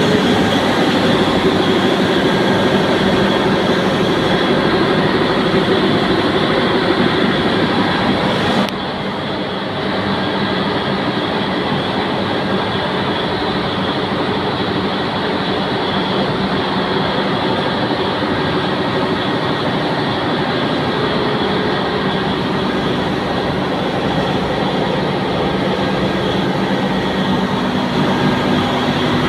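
Ship's air compressor running steadily: a loud, even mechanical noise with a constant hum under it. About nine seconds in, the level briefly dips and the top end drops away before the same running noise carries on.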